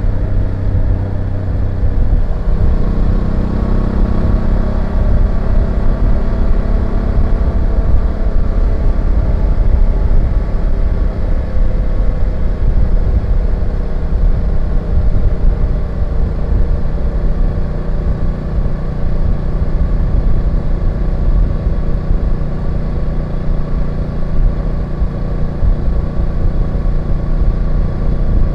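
BMW F850GS parallel-twin engine running steadily under way, with low wind and road rumble; the engine note changes about two and a half seconds in.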